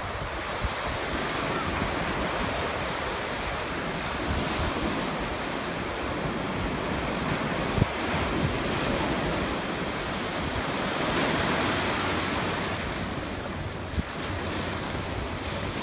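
Ocean surf breaking and washing over the shallows, with wind on the microphone; the wash swells louder about two-thirds of the way through, and there is one brief knock about halfway.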